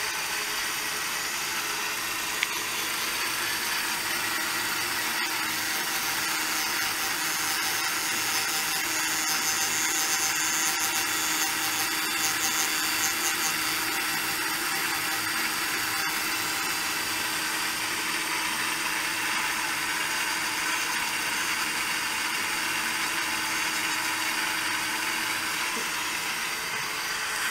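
Lienhard rose engine lathe taking a cut: a steady power-tool whir and hiss from its motor-driven cutter as it works the piece. A single click sounds a couple of seconds in.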